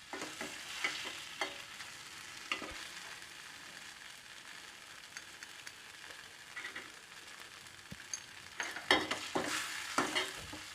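Garlic, shallots and tomato sizzling in hot oil in a pan as they are stirred, with scattered clicks and a few louder scrapes against the pan about nine seconds in.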